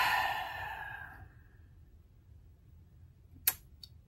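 A long breathy sigh that fades out over about a second, then a single sharp click about three and a half seconds in.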